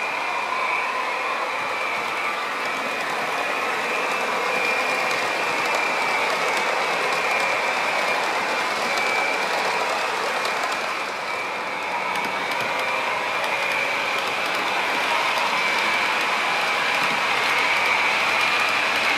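Model HST train running along the layout's track: a steady high whine over a continuous rolling rattle of wheels on rail.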